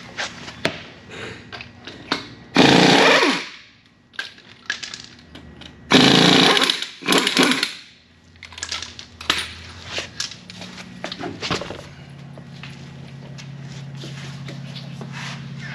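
Power tool, an impact wrench, run in three short bursts of about a second each, the first falling in pitch as it stops. Clicks and clattering of handled metal parts come in between.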